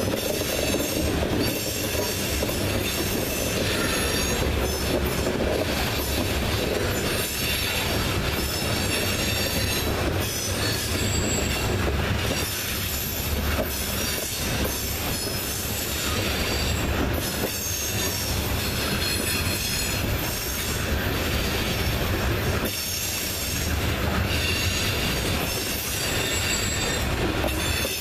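Loaded coal hopper cars of a freight train rolling past at close range in a steady rumble, with high-pitched steel wheel squeal that comes and goes.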